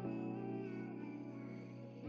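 Background music: mellow held notes with a note change right at the start.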